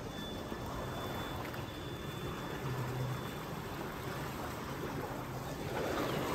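Pumped water gushing steadily out of an irrigation pump's concrete discharge outlet into a canal, churning and splashing, with a faint low hum underneath. The pump is draining a paddy field and pushing the water out at full flow.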